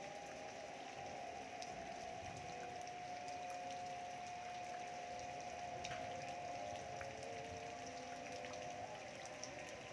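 Steady rain falling, with scattered drop ticks. A steady humming tone runs alongside it and stops near the end.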